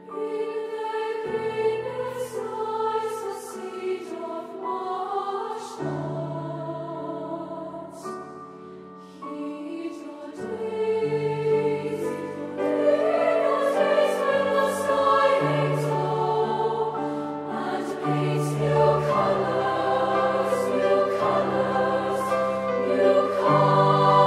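Treble choir of girls' voices singing sustained choral harmony, with grand piano accompaniment. The music softens briefly about a third of the way in, then swells louder through the second half.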